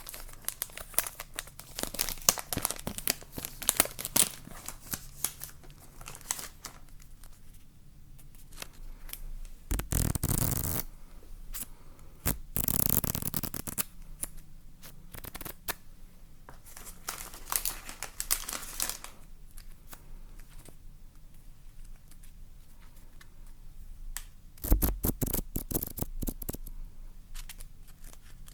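Close-miked ASMR handling sounds: crinkling, scratching and rustling of materials worked by hand, with dense small clicks and a few louder rustling bursts about ten, thirteen and twenty-five seconds in.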